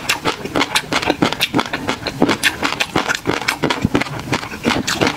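Close-miked chewing of a mouthful of tobiko (flying-fish roe) with peanut sauce and garlic: a dense, irregular run of small sharp pops and crunches, several a second.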